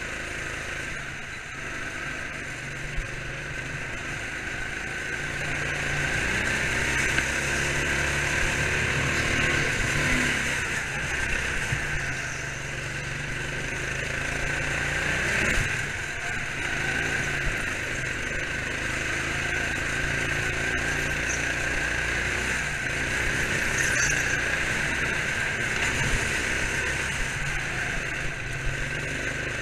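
Go-kart engine running while the kart laps the track, heard from a camera mounted on the kart; the engine note rises and falls through the corners.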